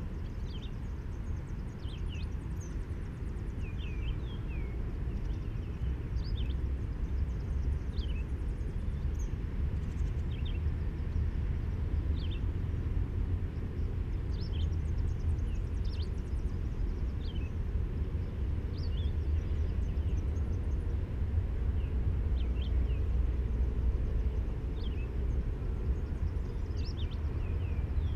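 A steady low outdoor rumble, growing a little louder, with birds giving short chirps every second or two throughout.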